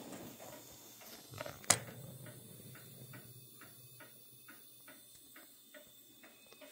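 Faint, even ticking, about three ticks a second, with one sharp click a little under two seconds in.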